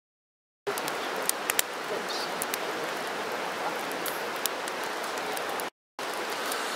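Small wood fire crackling in a portable steel fire-pit grill: a steady hiss with scattered sharp pops, several close together about a second and a half in. It starts suddenly about half a second in and cuts out briefly near the end.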